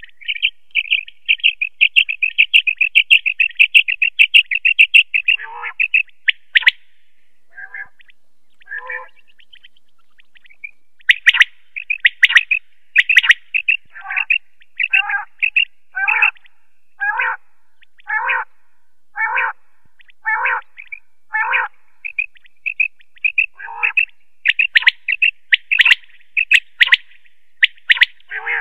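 Male common quail calling. Fast runs of sharp, rapidly repeated notes come near the start and again near the end. In between there is a series of separate, lower-reaching calls, about one a second.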